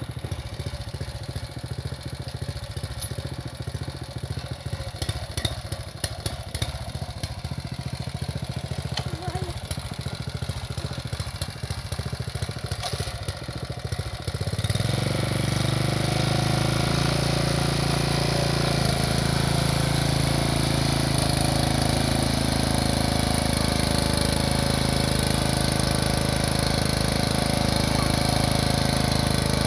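Mountfield MS 07 two-wheel walking tractor's petrol engine idling with a rhythmic putter. About halfway through it speeds up to a steady, louder run as the tractor pulls its plough through the soil.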